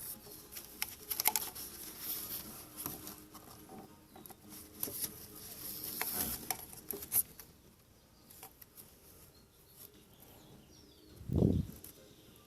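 Irregular light clicks, taps and scraping of hand work on engine-bay parts, busiest in the first half, with a single low thump near the end.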